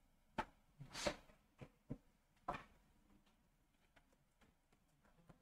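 Faint computer keyboard keystrokes: about six scattered taps in the first two and a half seconds.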